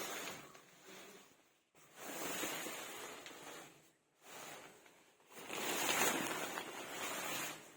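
Synthetic tent fabric, the outer fly sheet of a Decathlon tent, rustling and swishing as it is handled, in four bursts with short pauses between.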